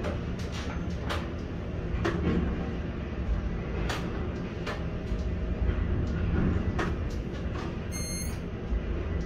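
Steady low machinery rumble and hum from a container gantry crane, heard from its operator cab, with irregular sharp clicks and ticks. A short high beep sounds near the end.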